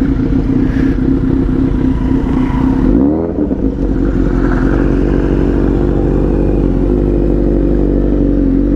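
Kawasaki Z900 inline-four motorcycle engine under way, its exhaust note steady, heard from the rider's seat. About three seconds in the note briefly dips and climbs back up before settling again.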